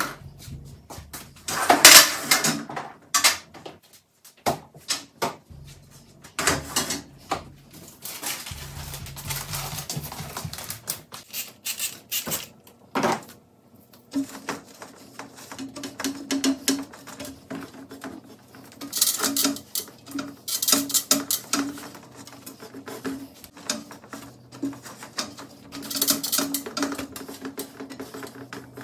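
Household objects being handled and set down: irregular knocks, clinks and clatters of dishes and utensils. A low steady hum joins about halfway through.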